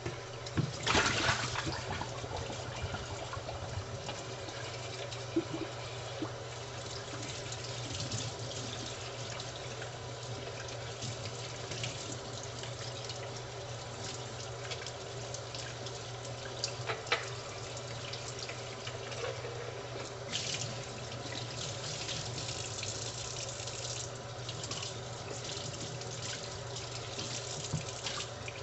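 Kitchen tap running into a sink while dishes are washed up, the water loudest about a second in, with a few sharp knocks of dishes and utensils now and then.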